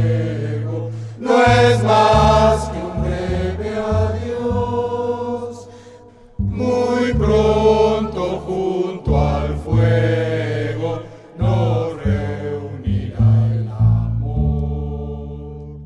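A student estudiantina singing in chorus over string accompaniment, with a bass line stepping from note to note. The music dips briefly about six seconds in, then comes back in.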